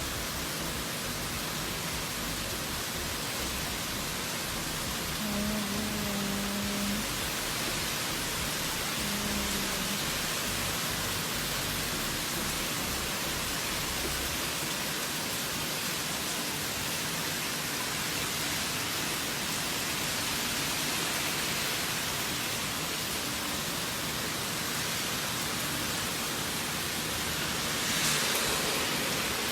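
Heavy rain falling steadily in a storm, an even hiss with a slight swell near the end.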